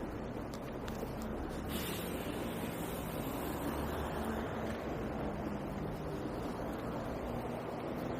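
Steady noise of road traffic, with a low engine hum underneath and a brief louder hiss just under two seconds in.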